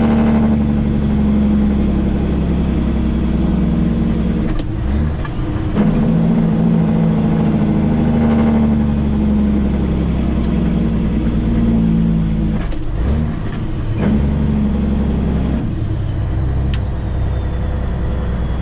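CAT C15 diesel engine of a Peterbilt 379 semi-truck running steadily under load with a high whine. Twice, about 5 and 13 seconds in, the engine note breaks off and then comes back at a new pitch as the driver double-clutches down a gear.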